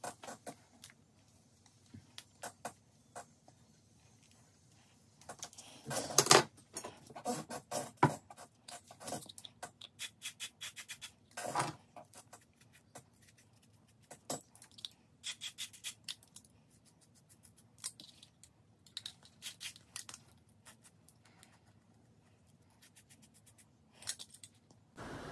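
Scattered small clicks, taps and short rubbing scrapes of objects being handled, loudest in a cluster about six to eight seconds in and again around twelve seconds.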